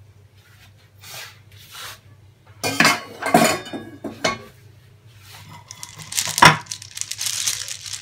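Boiled periwinkle shells rattling and clattering against each other in a plastic mesh colander as it is shaken to drain off the cooking water, in irregular bursts with the sharpest clatter about six and a half seconds in.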